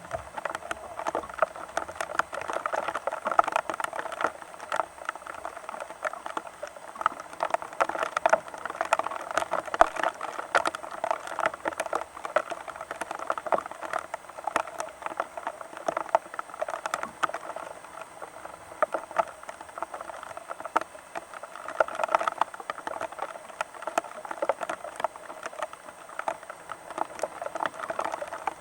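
Rain pattering steadily: a dense, irregular run of drops striking a close surface.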